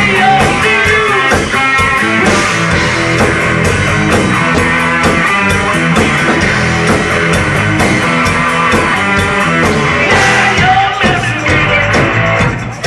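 Rock band playing, with guitar and a drum kit keeping a steady beat; the music drops back briefly near the end.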